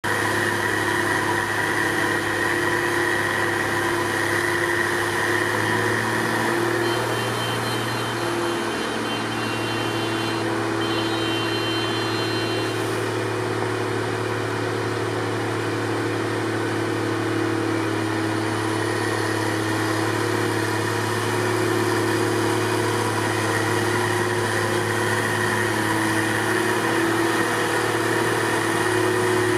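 Diesel engines of heavy snow-clearing machinery, wheel loaders fitted with snowblowers, running in a steady drone with a low hum and several held tones. A faint higher whine joins for a few seconds about a quarter of the way in.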